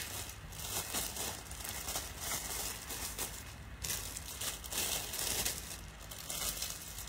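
Cloth rustling and swishing as a floral blouse is pulled on over the head and tugged into place, in irregular soft swells.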